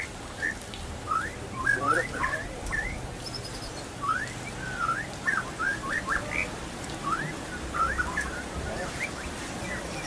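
White-rumped shama (murai batu) singing: runs of short, quick rising whistle notes with brief pauses between them.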